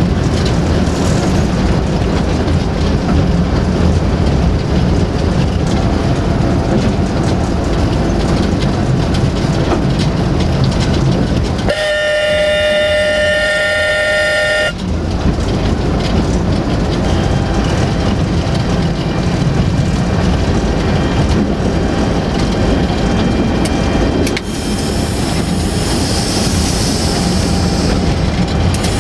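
Cab interior of a 060-DA (LDE 2100) diesel-electric locomotive under way: the Sulzer diesel engine and running gear make a steady loud rumble. About twelve seconds in, the locomotive's horn sounds one steady blast of about three seconds.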